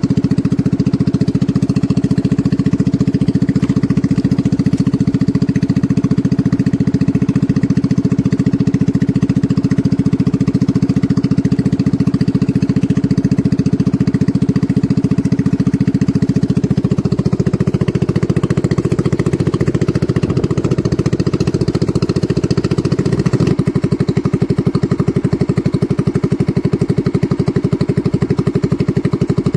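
Small boat's engine running steadily and loudly, its pitch shifting down slightly about seventeen seconds in and changing again about six seconds later.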